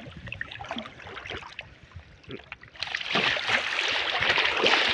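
Water sloshing and splashing around a person wading and diving in rough wetland water: light scattered splashes at first, then loud continuous splashing from about three seconds in.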